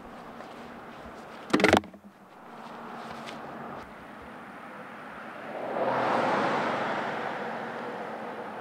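A single loud knock as a traffic channelizer cone with a weighted base is set down on the road shoulder, then a vehicle driving past on the highway, its tyre and engine noise swelling to a peak about six seconds in and slowly fading.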